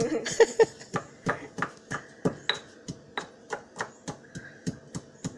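Stone pestle pounding dried anchovies in a stone mortar (lesung batu): a steady run of short knocks, about three strokes a second.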